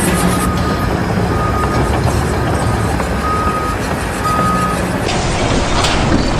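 Heavy vehicle running with a steady low rumble while a single-tone reversing alarm beeps four times, each beep about half a second long.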